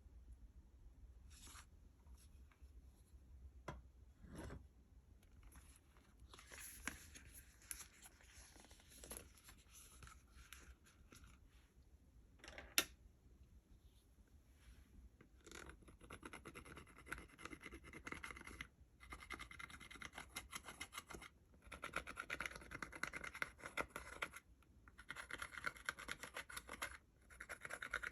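Slime being mixed by hand, making faint sticky crackling and scratching. The crackle grows denser and steadier in the second half, with a single sharp click about halfway through.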